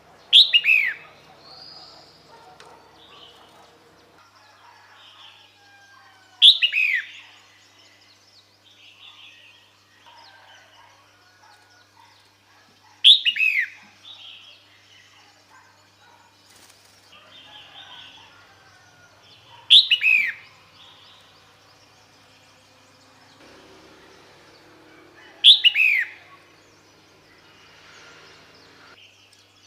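Female red-whiskered bulbul calling, the call used to lure a male: five short, loud calls about six seconds apart, each a quick downward-sweeping note, with faint chirps from other birds between them.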